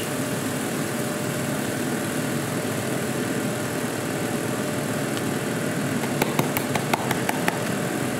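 Chopped onions sizzling steadily in a stainless steel pot. A quick run of light clicks comes about six to seven and a half seconds in, as paprika is shaken in from a small container.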